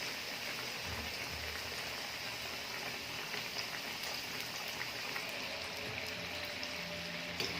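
Cauliflower florets deep-frying in a pan of hot oil: a steady, even sizzle.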